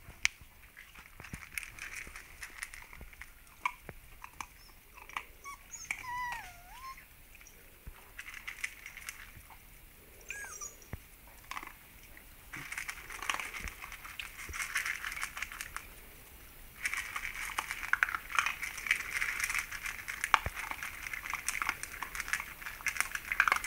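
Puppies eating dry kibble from a metal tray: dense crunching and clicking of pellets on the metal, much busier in the second half. A few short, high, wavering whines in the first half.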